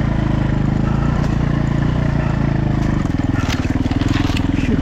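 Dirt bike engine running on a trail ride. About three seconds in, the engine note drops to a lower, pulsing chug, with a few sharp clicks over it.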